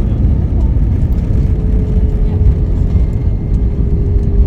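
Airbus A320 cabin noise: a loud, steady low rumble with a hum that drops slightly in pitch about a second in.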